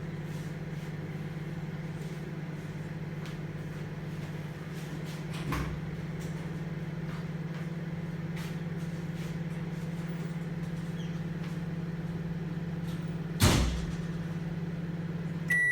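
Midea microwave oven running with a steady low hum while it heats. A loud short thump comes about 13 seconds in, and at the very end its end-of-cycle beep starts as it switches off.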